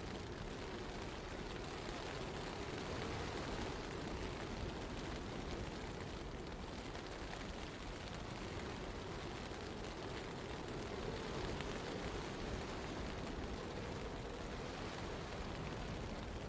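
Steady urban blizzard ambience: an even rush of wind and snow with a low rumble underneath and no distinct events.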